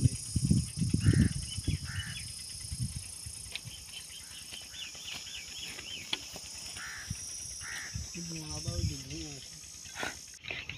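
Rural outdoor ambience: a steady high insect buzz, with birds chirping several times and brief voices near the start and again near the end.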